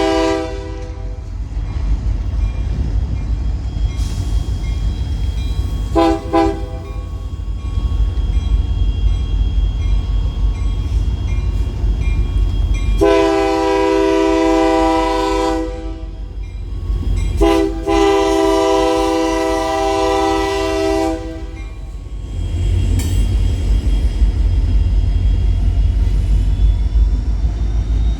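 Union Pacific freight locomotive's multi-chime air horn playing a horn show: a blast that cuts off about a second in, a quick double toot about six seconds in, then two long blasts about midway, over the steady rumble of the freight train rolling past, which grows louder near the end.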